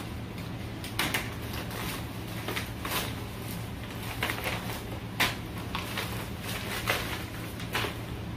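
A plastic mailer bag being cut open and unpacked by hand: short, irregular crinkles and rustles of plastic and paper, the sharpest about five seconds in.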